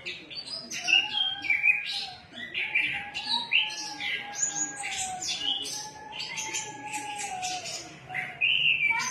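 Orange-headed thrush singing hard, a rapid, varied stream of short high notes and phrases.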